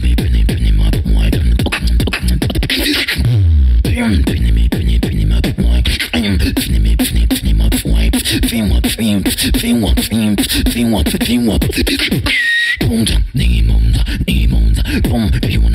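Live solo human beatboxing into a handheld microphone: fast, dense percussive mouth sounds over a deep, continuous bass, with sliding vocal bass lines. The bass drops out briefly about twelve seconds in, under a short high-pitched vocal sound.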